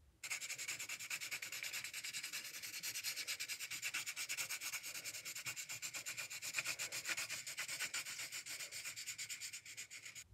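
Graphite pencil scribbling on paper in rapid back-and-forth shading strokes, a dense scratchy rasp. It starts abruptly just after the start and stops right at the end.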